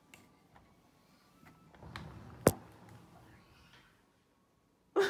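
Wooden interior door being opened: a rustle of movement, then one sharp latch click about halfway through, followed by a fading rustle. A brief sharp sound at the very end.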